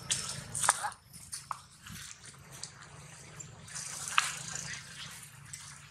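Dry leaves and grass rustling and crackling underfoot, with a few sharp crackles about a second in and again past four seconds, over a faint steady low hum.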